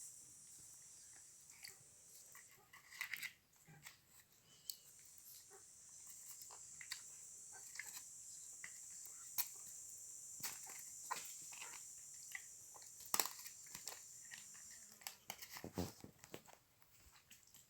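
A steady high hiss of running water, with many scattered small clicks, taps and splashes, as a pet parrot is washed.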